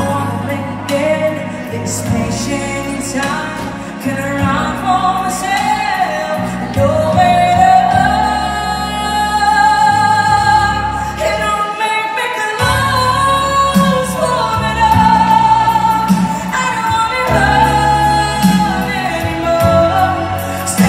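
A woman singing a ballad into a microphone, amplified, over a backing track with a stepping bass line; she holds several long notes, the longest about eight seconds in.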